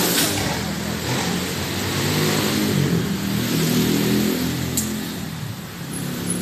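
A car driving along a wet street, heard from inside the car: the engine hums as it pulls along, over the hiss of the road.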